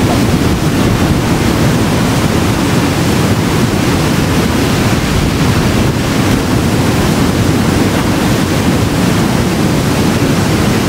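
Fast-flowing mountain river rushing over stones: a steady, loud, unbroken rush of water.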